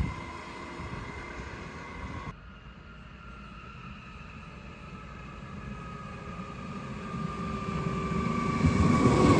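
A train fades out at the start, then another approaches, its running noise and a faint steady whine growing steadily louder over the last few seconds. There is an abrupt change in the background sound about two seconds in.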